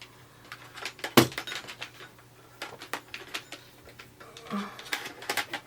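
Scattered light clicks and taps of small hard objects being handled, with one sharper knock about a second in, over a faint steady hum.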